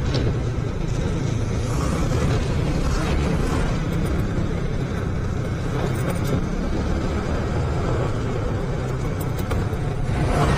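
Motorcycle riding over a badly damaged, potholed road: steady low rumble of engine and road noise on the rider's microphone.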